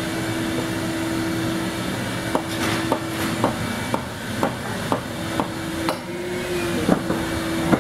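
A hammer striking in a row of sharp knocks, about two a second, starting a couple of seconds in and going on to the end, with one short pause. Under it runs a steady hum of shop machinery.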